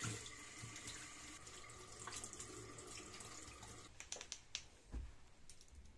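Bathroom faucet running faintly into a sink as makeup brushes are rinsed under it. About four seconds in, the water stops and a few light taps and clicks follow as the brushes are handled.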